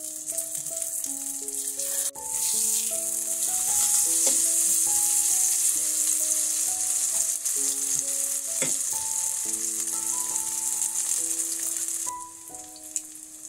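Battered zucchini slices sizzling as they fry in olive oil in a pan. The sizzle grows much louder about two seconds in and drops back near the end, with a short tap midway. A gentle melody of single notes plays underneath.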